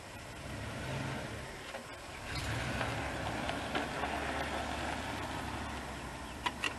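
1995 Dodge Ram 1500 pickup rolling slowly on gravel: the engine runs at low revs under light throttle, and the tyres crunch on the stones. The engine note grows louder a little over two seconds in, and two short ticks come near the end.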